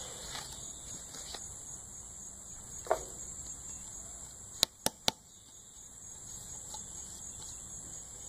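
Crickets chirping steadily in the background, with one short knock about three seconds in and three sharp clicks in quick succession a little past the middle.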